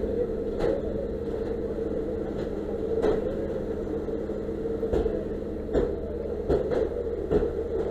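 A steady engine running at idle, a low rumble with a constant hum, with a few short clicks and knocks scattered through it.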